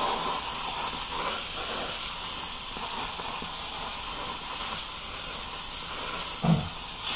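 Handheld upholstery steamer wand hissing steadily as it blows steam onto a cushion seam to make the covering supple for pulling out wrinkles. A brief low thump comes near the end.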